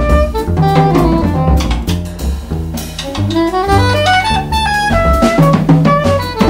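Small jazz group of soprano saxophone, pizzicato double bass and drum kit. The soprano sax plays a quick melodic line with a rising run about two seconds in, over plucked bass notes and drums with cymbals.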